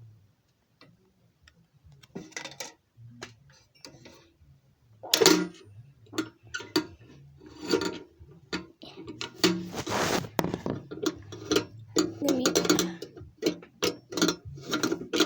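Irregular clicks, knocks and light metallic clunks from handling a small safe and its lock. They are sparse and faint at first and come thicker and louder from about five seconds in.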